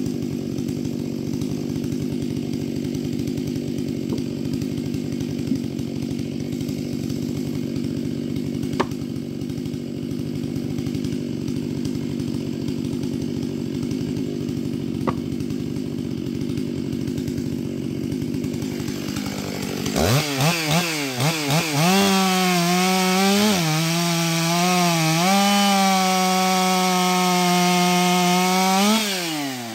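Stihl MS 661 C two-stroke chainsaw idling steadily, with two sharp knocks as logs are set down. About two-thirds of the way in it revs up and cuts into a beech log at full throttle, its pitch dipping briefly under load, then drops back just before the end.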